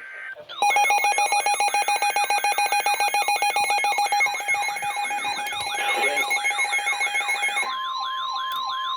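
Emergency weather alert tones from weather radio receivers: a rapidly repeating warbling alarm over a steady alert tone, the steady tone stepping up in pitch near the end. The alert announces a severe thunderstorm warning.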